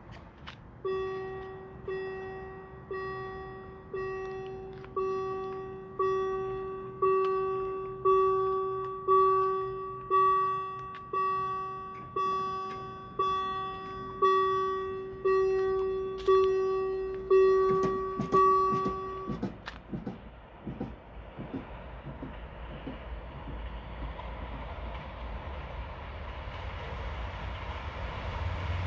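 Level-crossing warning bell ringing about once a second, each ding ringing out, for roughly eighteen seconds while the crossing closes. It stops, and the rumble of an approaching train then grows steadily louder toward the end.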